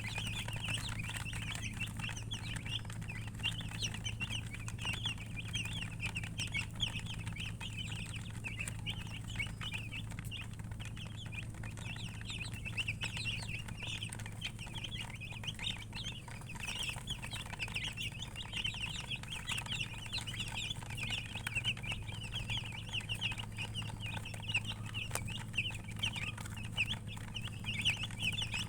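A group of domestic chicken chicks peeping continuously, many short high calls overlapping, over a steady low hum.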